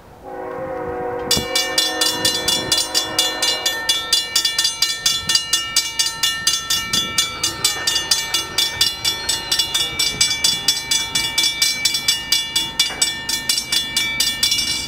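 Railroad grade-crossing warning bell starting about a second in and dinging steadily, about four strikes a second, as the crossing activates. Under it, an approaching train's horn sounds a chord of held notes that is strongest in the first few seconds.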